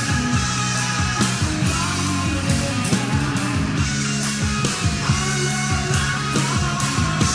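Rock music: a full band with sustained low chords and a steady drum beat with cymbals.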